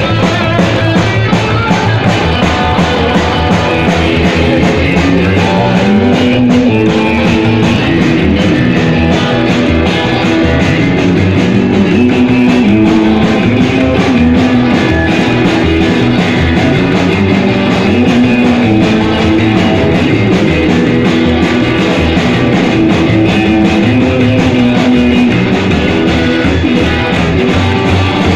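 Rock song led by guitar over a steady beat, playing loudly and evenly throughout.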